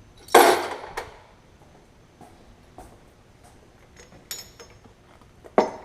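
Metal tools and engine parts being handled during a small-block Chevy teardown: a loud clatter about a third of a second in that dies away over about half a second, a light ringing clink around four seconds, and a sharp knock near the end.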